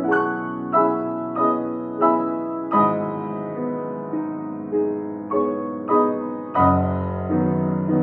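Fazioli F212 grand piano being played: an even, unhurried run of chords struck about every two-thirds of a second, each left ringing over a held bass note. The bass moves to a new note about a third of the way in and to a deeper one near the end.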